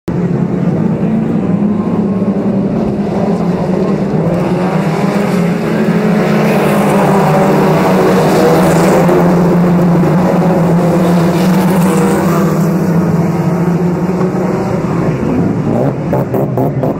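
A pack of FAC1600-class autocross cars racing on a dirt oval, several engines running hard at once. The engine noise swells as the cars pass through the corner about halfway in, then eases as they move away.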